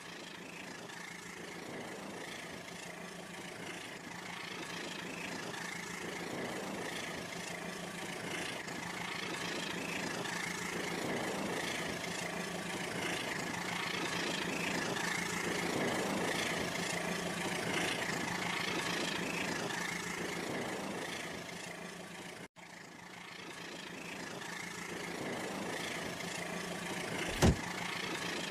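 Wood fire burning in a fireplace: a steady roar of flame with fine crackling and a low steady hum, and one sharp loud pop near the end. The sound drops out for an instant about two-thirds of the way through.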